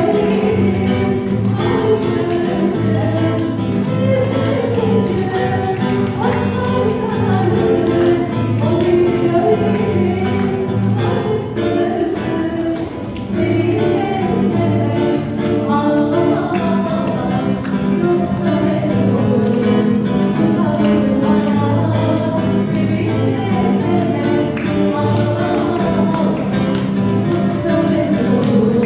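Music: a song with singing over plucked-string accompaniment and a steady bass line.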